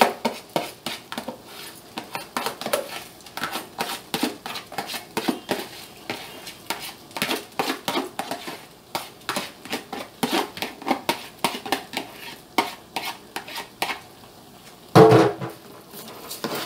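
Metal spoon scraping and tapping washed rice out of a plastic container into a cooking pot, a quick run of clicks and taps, with one louder ringing knock against the pot near the end.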